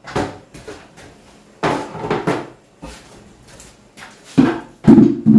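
Plastic washbasins and a scoop being set down and knocked about on a tiled bathroom floor: a series of hollow clunks and clatters, the loudest cluster near the end, with the echo of a small tiled room.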